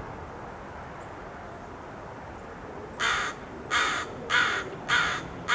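Crow cawing: four caws about two-thirds of a second apart, starting about three seconds in, with a fifth just beginning at the end, over faint steady background noise.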